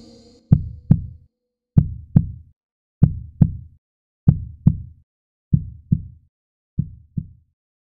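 Heartbeat sound effect: six slow double thumps, about one beat every second and a quarter, growing gradually fainter and stopping shortly before the end. A held music note dies away at the very start.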